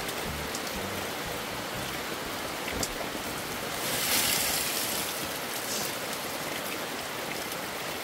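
Steady rain falling on a camping tarp and umbrella, an even hiss with scattered drop ticks. About four seconds in the hiss swells louder for under a second.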